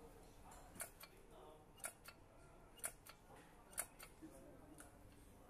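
Faint, evenly spaced sharp clicks, about one a second, five in all, over quiet room tone.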